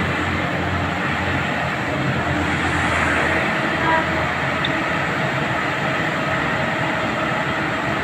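Steady rumble of a heavy diesel engine, its deepest part fading out about three and a half seconds in.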